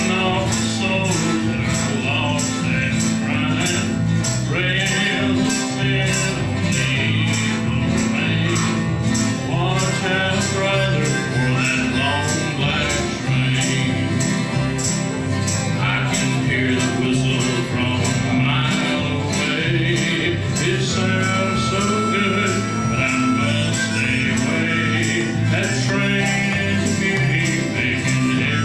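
Live acoustic country band playing: strummed acoustic guitars, harmonica and a tambourine keeping a steady beat about twice a second, with one long held harmonica-like note near the end.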